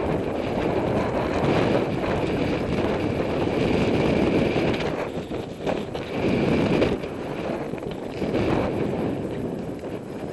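Wind rushing over the microphone of a camera carried on a bicycle coasting downhill, buffeting unevenly and rising and falling in strength.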